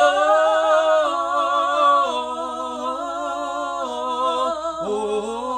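A man and a woman singing a slow gospel worship song together without accompaniment, drawing out 'oh Lord' in long held notes with vibrato. The pitch steps down about two seconds in and swoops back up near the end.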